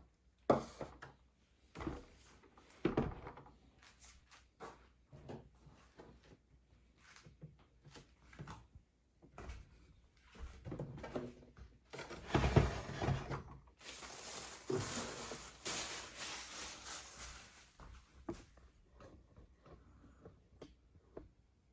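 Small plastic toy pieces and packaging being handled: scattered clicks, taps and light knocks, with a longer stretch of rustling about halfway through.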